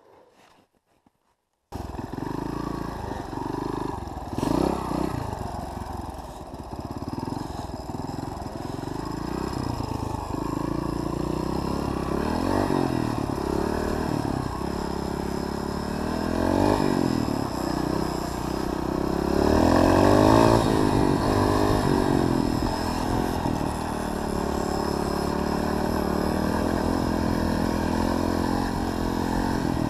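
Near silence for the first couple of seconds, then an off-road motorcycle engine cuts in loudly and keeps running, its pitch rising and falling as it revs up and eases off through the ride.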